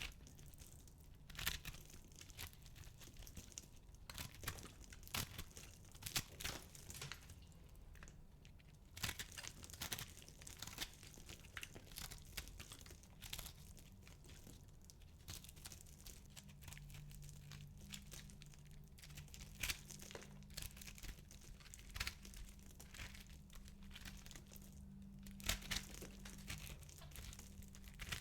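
Dry soap balls being crushed and crumbled, an irregular run of soft crunching and crackling with frequent sharp snaps.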